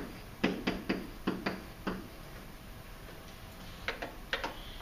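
A pen tapping and clicking against an interactive whiteboard's surface while numbers are written: a quick run of about seven light taps, then a pause and a few more taps near the end.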